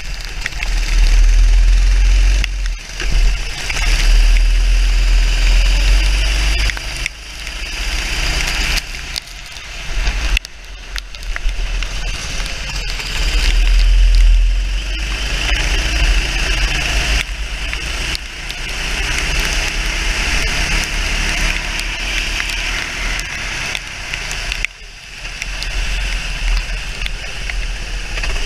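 Onboard sound of a racing kart on a wet track: the engine rising and falling in pitch between corners, under heavy wind rumble on the microphone and a steady hiss of tyres and spray.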